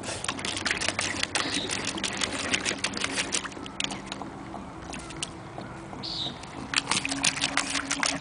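A schnoodle splashing water out of an automatic pet water dispenser's bowl: rapid, irregular splashes and spatters, with a short lull about four seconds in.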